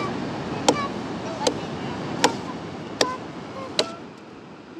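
A cleaver chopping nipa palm fruit on a wooden log: sharp strikes about one every three-quarters of a second, six in all, stopping about four seconds in.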